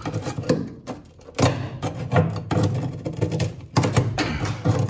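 Metal putty knife scraping and prying at stubborn rubbery sound deadener glued to a Datsun 240Z's steel floor pan: a run of short scrapes and knocks, with a brief lull about a second in. The deadener is stuck fast and hardly comes away.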